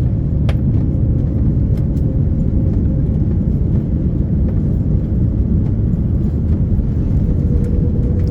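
Airbus A330-900neo cabin noise during landing: a steady low rumble of engines and airflow, with a faint steady hum over it.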